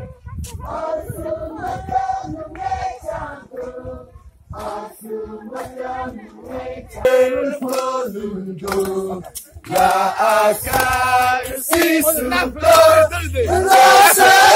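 A crowd singing a chant together in held, wavering notes. It swells louder about ten seconds in and again near the end.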